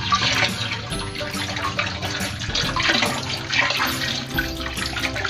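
Water pouring steadily from a garden hose into a shallow concrete fish pond as it refills.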